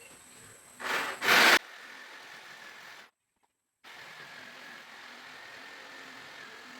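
A power saw cutting plywood: a loud burst of under a second that stops abruptly, then a steady, fainter mechanical noise with a faint high whine.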